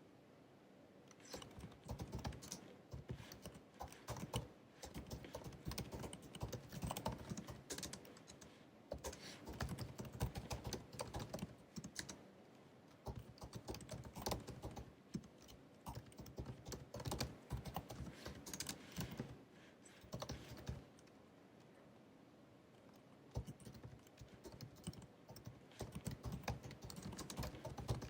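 Typing on the built-in scissor-switch keyboard of a 2019 16-inch MacBook Pro: quick runs of soft key clicks, broken by short pauses, the longest a couple of seconds around two-thirds of the way through.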